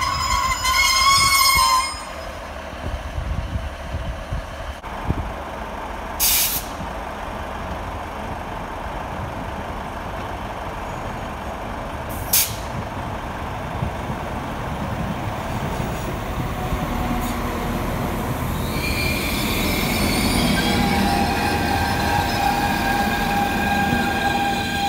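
Diesel multiple units at a station platform: a unit pulling away in the first two seconds, then two short sharp hisses. From about two-thirds of the way through, a Northern class 195 diesel unit approaches and runs in alongside, its rumble rising, with several high steady whining tones over it.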